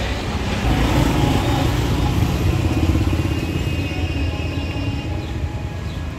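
Roadside traffic noise with a motorbike engine running close by, loudest from about a second in until about halfway through.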